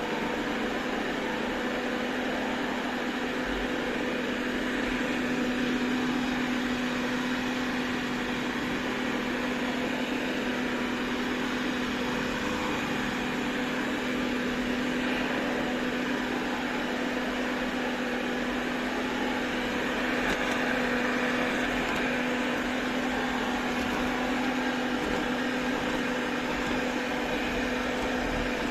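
Robot vacuum cleaner running: its suction motor holds a steady hum over an even rush of air.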